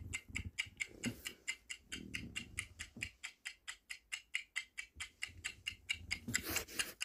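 Ticking clock sound effect marking a countdown timer: fast, regular ticks, several a second.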